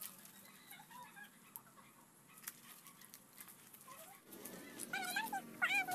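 Soft rustling of coconut palm leaflets being woven by hand, then, about five seconds in, a dog whining in several short, high cries that rise and fall in pitch.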